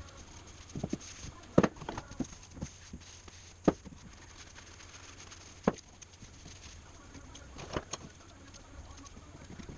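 Scattered knocks and clicks of a wooden hand plane and other items being handled on a wooden workbench, about half a dozen sharp ones, over a low steady hum.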